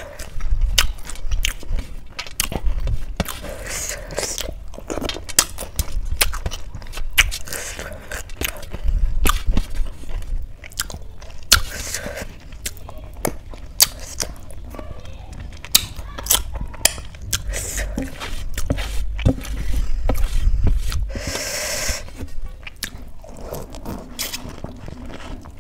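Close-miked chewing and crunching of crisp food by mouth, with many sharp crunches and mouth sounds coming in uneven bursts.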